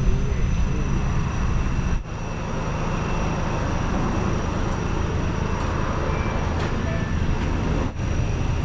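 Steady low rumble of road traffic mixed with wind on the microphone, with a thin steady high tone over it. Brief dropouts mark cuts about two seconds in and near the end.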